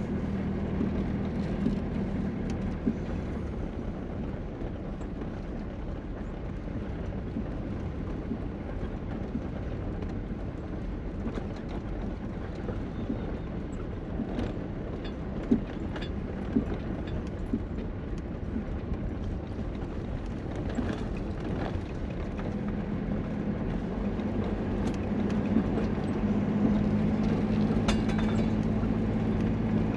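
Vehicle driving on a rough park road: a steady low engine hum with scattered rattles and knocks, the engine growing louder over the last several seconds.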